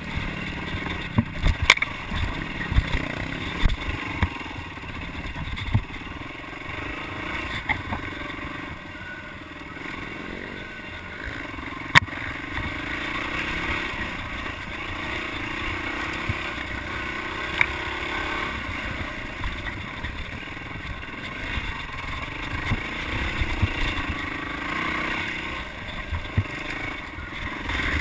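Yamaha dirt bike engine running at low, varying throttle, its pitch rising and falling as it is ridden over a rough trail. Sharp knocks and rattles from the bike jolting over the ground cut in now and then, the loudest about twelve seconds in.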